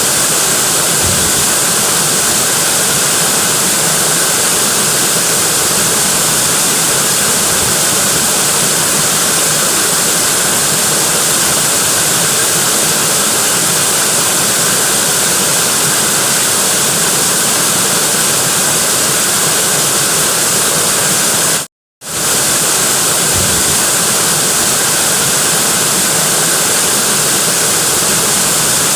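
Natural waterfall: water falling in a steady, even rush with a bright hiss on top. The sound cuts out for a split second about three quarters of the way through, then resumes unchanged.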